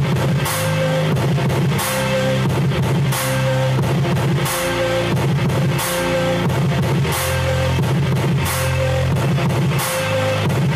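Rock music with drums and guitar playing from a Kenwood KR-V6070 receiver through a Wattsom PSR 420 speaker cabinet, with a steady beat, as a test that the receiver works.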